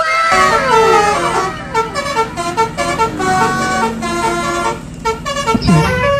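Bus telolet horn playing a multi-note melody, opening with a few falling swoops of pitch and then moving through quick stepped notes.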